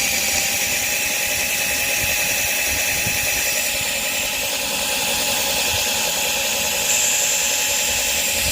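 Power drill running steadily under load, its bit cutting through stainless steel sheet. The sound grows a little brighter and higher about seven seconds in.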